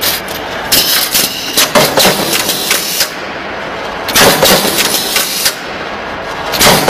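NC punch press with an automatic sheet feeder punching holes in a metal sheet: quick clusters of sharp metallic punch strokes over a steady machine hum, with a dense run of strokes about four seconds in.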